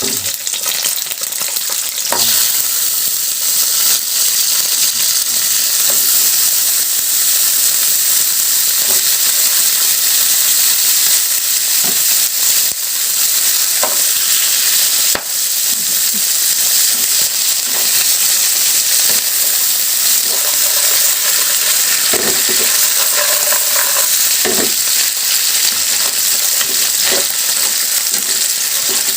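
Cut crab pieces sizzling steadily as they fry in hot oil, stirred in the pan, with a few short knocks of the utensil against the pan.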